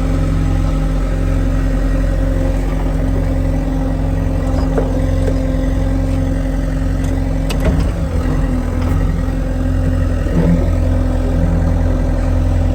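Farm loader's diesel engine running steadily while the bucket scoops muck, with a single sharp knock a little under eight seconds in.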